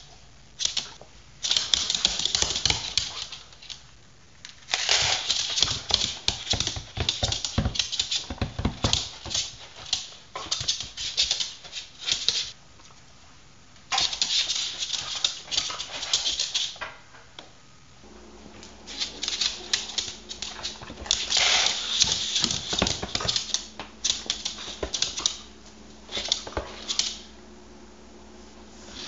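A Welsh corgi's claws clicking and tapping fast on a hardwood floor as it dances on the spot, in bursts of a few seconds with short pauses between.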